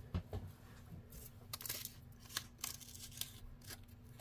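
Small handling noises at a workbench: a scattered string of light clicks and rustles, about a dozen over four seconds, with a faint steady hum underneath.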